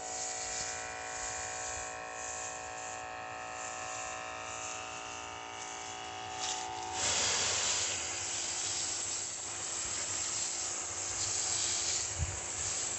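Pesticide spray gun on a hose hissing as it sprays the tomato plants, over the steady hum of the sprayer's pump motor. About halfway through the hum mostly fades and the spray hiss becomes the loudest sound.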